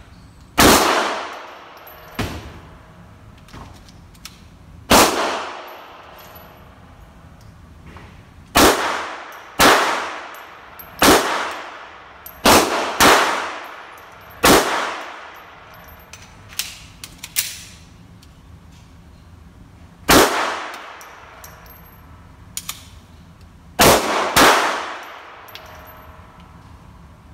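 A Mauser HSc pistol in .32 ACP firing single shots at an irregular pace, about a dozen in all. Each sharp report trails off in a reverberant ring, with a few fainter reports in between.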